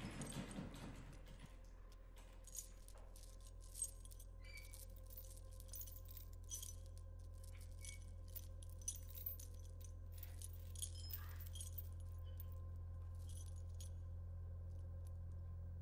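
Metal chain clinking and rattling in short scattered clinks over a steady low hum, the hum growing a little louder in the second half.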